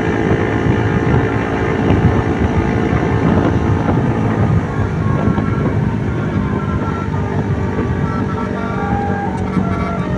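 Large bus engine running loudly with heavy low rumble throughout. A few short, steady horn tones start to sound near the end.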